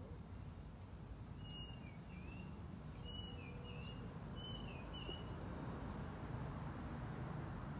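Three short, thin, high-pitched calls about a second and a half apart, each a held note that dips and rises again, over a steady low background rumble.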